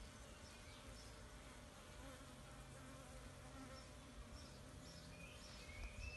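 Faint, steady buzzing of a small honeybee swarm clustered at the entrance of a hive box as the bees are drawn inside.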